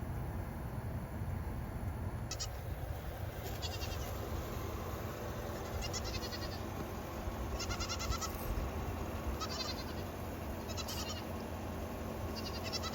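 Goats bleating: a string of short, wavering calls every second or two, over a steady low rumble.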